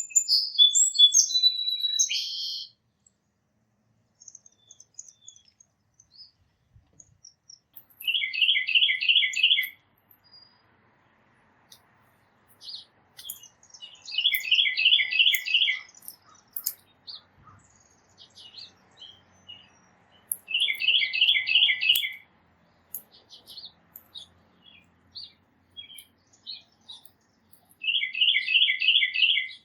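Songbirds calling. One bird repeats a short phrase of about five quick, two-part whistled notes four times, roughly every six seconds. A busier, higher song opens the stretch, and scattered thin chirps fall in between.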